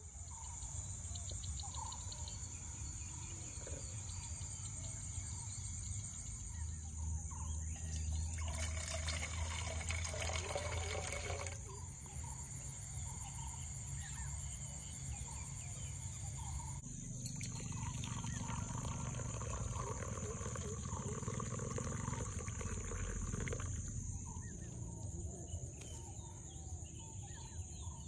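Rice-paddy ambience: insects keep up a steady high-pitched drone over a low rumble, with scattered short bird calls. A burst of broad hiss runs from about 8 to 11 seconds in.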